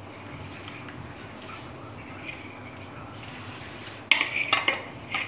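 Stainless steel plates clattering: a quick cluster of sharp metallic clinks about four seconds in, over an otherwise low, quiet background.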